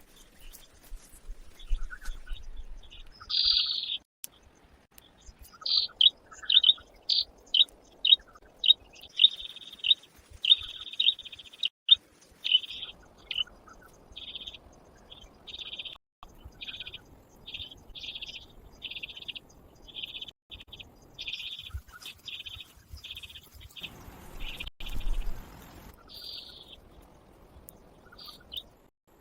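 A bird calling over and over in short, high chirps, dozens in quick succession for about twenty seconds, with a faint rustling hiss underneath.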